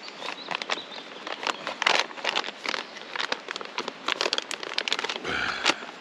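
Food pouch crinkling and rustling as it is handled, with many irregular crackles. There is a brief dull bump a little after five seconds in.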